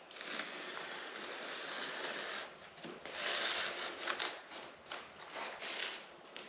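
Boat carpet being cut along a straight edge: a long, even rasping stroke, a louder stroke about three seconds in, then several short rasping strokes.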